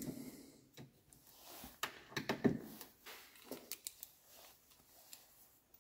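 Faint, scattered clicks and taps of hand tools, a screwdriver and a socket tool, being worked and handled at a car door's inner frame, with a small cluster of clicks about two seconds in and another near the middle.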